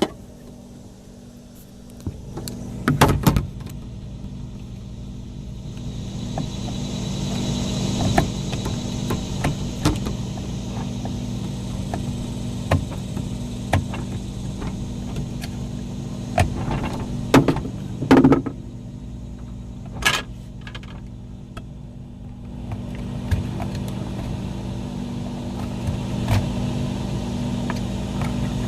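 Steady low hum of a running motor with a few even tones, coming in about two seconds in, with scattered clicks and knocks from plastic parts of the ice maker being handled.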